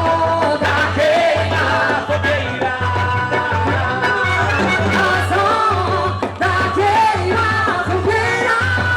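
Upbeat festa junina dance music in a forró style: a singing voice over a steady, pulsing bass beat.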